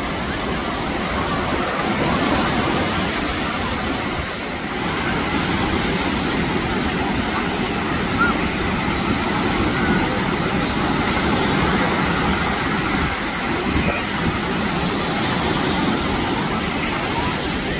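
Ocean surf breaking and washing in, a steady rush, with wind buffeting the microphone.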